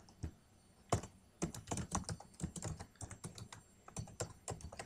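Typing on a computer keyboard: a quick, irregular run of key clicks starting about a second in.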